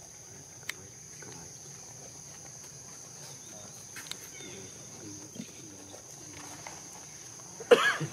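Steady, high-pitched drone of insects with a few faint clicks, and near the end one short, loud animal squeal.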